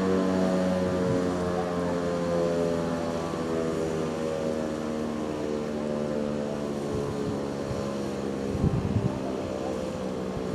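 Motor-driven fire siren winding down: a steady, multi-toned wail that slowly sinks in pitch and fades. A few dull thumps come near the end.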